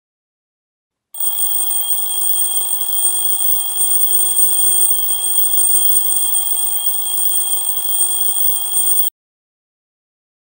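Smartphone alarm going off: a steady, high-pitched electronic tone over a hiss that starts about a second in and cuts off suddenly about nine seconds in, when the alarm is switched off.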